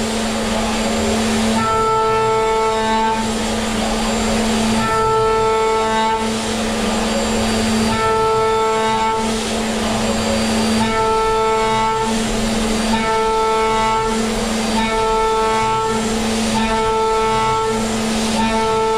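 CNC milling spindle cutting aluminium with an end mill. A steady pitched whine runs under a cutting tone that cuts out and comes back about every one and a half to two seconds as the tool moves into and out of the cut, with a hiss between.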